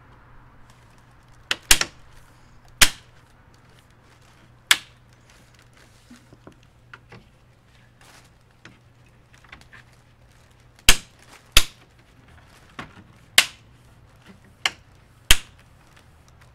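Plastic trim clips snapping into a Ram 2500 Night Edition grille as the pieces are pressed home by hand: about ten sharp clicks at irregular intervals, some in quick pairs.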